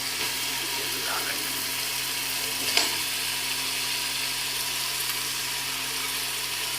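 Onion-tomato masala frying with a steady sizzle in a pressure cooker as soaked red lentils are stirred in, with one sharp clink of the spoon against the pot about three seconds in. A steady low hum runs underneath.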